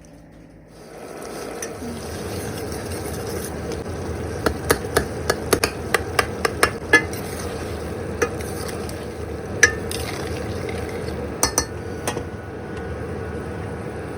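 Food sizzling in hot oil in a pan, starting about a second in, while a metal spoon stirs and clinks sharply against the pan, a quick run of clicks in the middle and a few more later.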